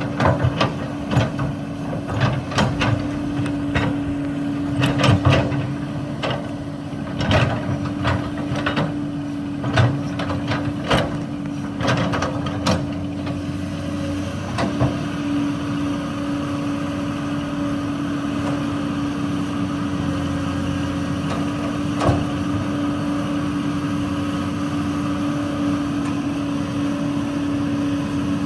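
Hydraulic excavator engine running at a steady hum while rock clatters and knocks sharply, many times over the first half as limestone is dug and handled. After that the engine runs on steadily with only one more knock.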